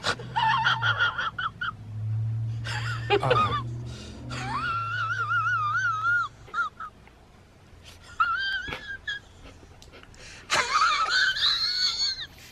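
A man mock-crying in a high, wavering voice: a string of whining wails and sobs, the longest in the middle and near the end.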